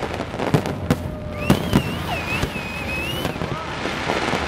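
Aerial fireworks bursting in a string of sharp bangs, with a high wavering tone running through the middle of the stretch.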